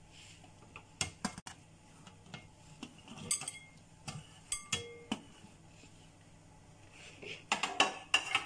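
Chopped vegetables sliding off a plastic tray and dropping into a glass bowl, with scattered clicks and knocks of the tray against the bowl's rim. A quick run of knocks comes near the end.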